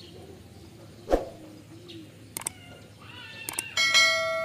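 Subscribe-button animation sound effects: mouse clicks, then a bright bell notification chime near the end that rings on and fades. A single sharp thump about a second in is the loudest sound.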